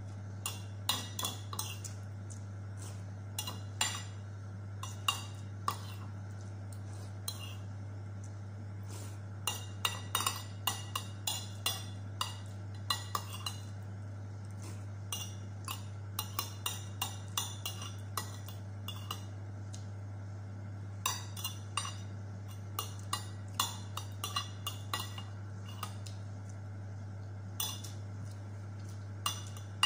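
Metal spoon clinking against a ceramic soup plate while eating, in irregular clusters of short sharp taps, over a steady low hum.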